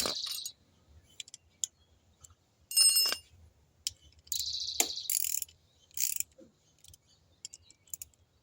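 Short bursts of clicking from a hand tool tightening screws on a motorcycle, with a ringing metallic clink about three seconds in.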